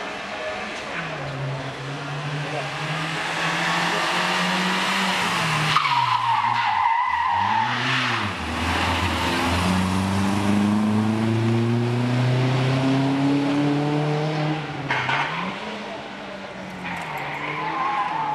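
Rally car engine working hard, its pitch climbing under acceleration and dropping sharply as the driver lifts and brakes several times. Tyres squeal briefly in the middle and again near the end.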